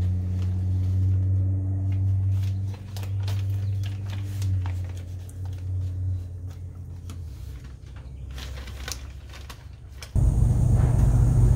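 Clear plastic masking sheeting crinkling in short clicks as it is tucked into place, over a steady low hum that fades away after several seconds. About ten seconds in, a loud low rumble starts suddenly.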